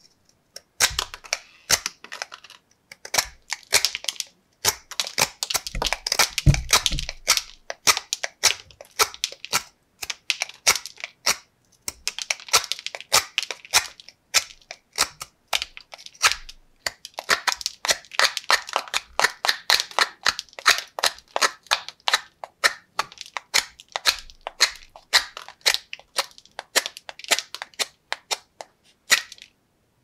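The freshly re-sharpened blade of a vintage Klein electrician's pocket knife whittling a wooden block: a quick run of short, sharp shaving strokes, a few a second, with a few brief pauses.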